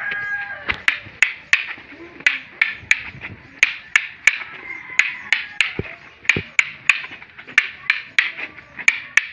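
Arnis double sticks clacking together in a fast sinawali drill: sharp wooden strikes in a steady rhythm of about three a second.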